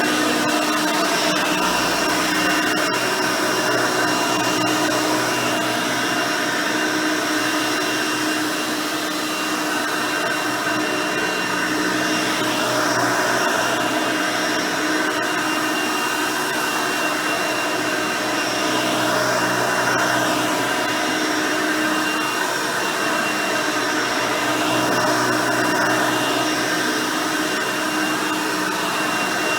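Hoover Elite 350 upright vacuum cleaner running, its original 5-amp motor with a 9-bladed fan giving a steady whine, with small swells and dips in level as it cleans.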